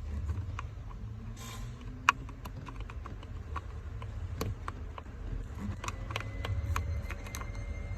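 Scattered light clicks and taps of a tool probing the small holes behind a steering wheel to push out the driver airbag's retaining pins, with one sharper click about two seconds in.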